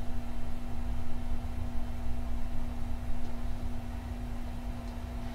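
Steady electric machinery hum in a workshop: one constant low tone over a rough rumble, with no change in pitch.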